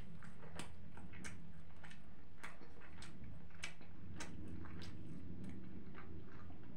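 A person chewing a mouthful of shawarma with lips closed: wet, irregular mouth clicks about one to two a second, over a steady low hum.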